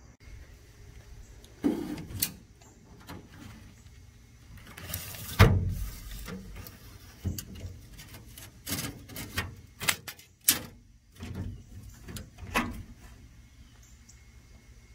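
Irregular clicks and knocks with a brief scrape about five seconds in, the loudest knock during the scrape: handling noise from a steel tape measure being drawn out and laid across an aluminum boat hull.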